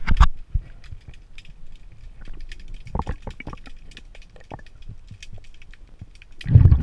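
Underwater, a scuba diver's exhaled breath bubbling out of the regulator, a burst right at the start and another near the end, with faint scattered clicks and ticks in between.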